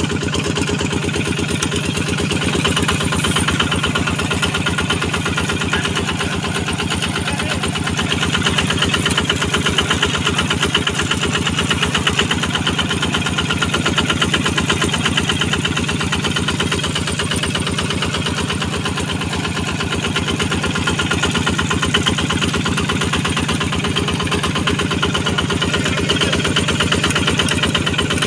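Quick QH-11 combine harvester's engine running steadily, with a fast, even firing rhythm and small swells in loudness.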